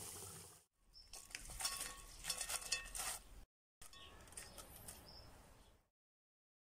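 Stew simmering in a kazan for a moment, then a run of light clicks, taps and rustles from salad preparation: greens handled in a bowl and a knife cutting radishes on a wooden board. The sound cuts off suddenly about a second before the end.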